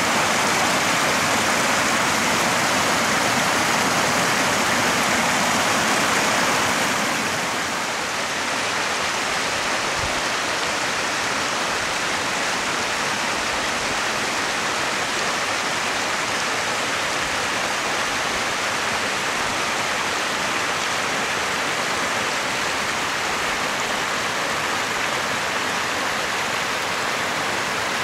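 A small brook rushing and splashing over rocks and little cascades, a steady rush of water. About seven seconds in, it turns slightly quieter and duller.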